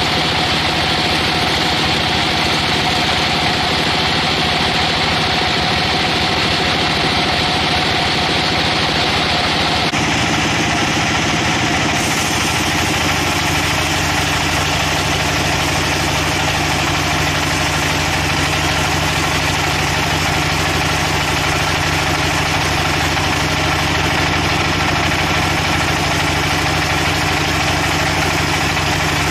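Sawmill machinery running steadily, a continuous engine-like hum with held pitches; the sound changes character about ten seconds in.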